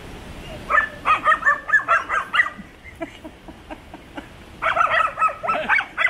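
Puppies yapping in quick runs of short, high barks: one run about a second in, a few scattered yaps in the middle, and another run near the end.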